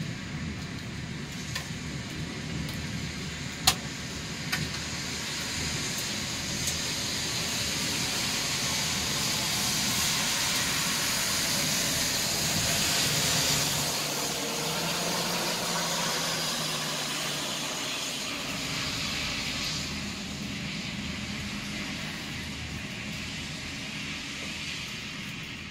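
Steady hiss of rain during a thunderstorm, swelling louder around the middle and easing off again. A few sharp ticks fall in the first seven seconds, the loudest about four seconds in.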